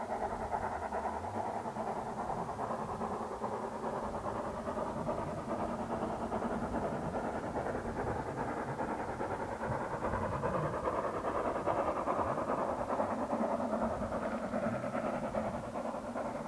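A steam train working in the distance and out of sight, its running noise swelling gradually to a peak late on and then easing.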